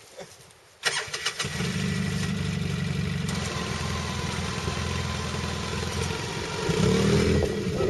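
A UTV's engine starts about a second in and then runs steadily, revving up briefly near the end.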